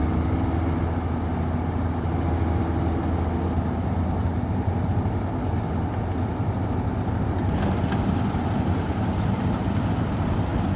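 Wheat combine harvester running steadily while it harvests, a constant low engine hum under mechanical noise.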